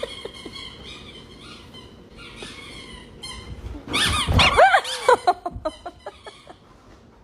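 A dog making high-pitched squeaks and whines, then a louder run of yelping cries about four seconds in that break into quick short yips.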